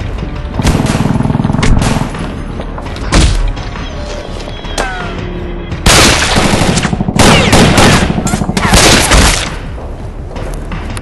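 Several bursts of rapid automatic rifle fire from an AK-type rifle, dubbed-in gunfire effects, with a single loud shot about three seconds in. Background music plays underneath.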